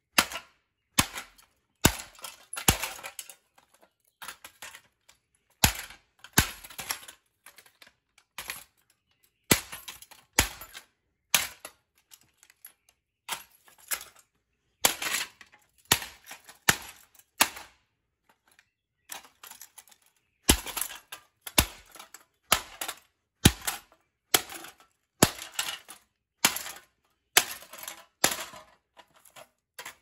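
Claw hammer repeatedly striking the crushed metal motor housing of a ceiling fan on concrete: dozens of sharp, uneven blows with a couple of short pauses.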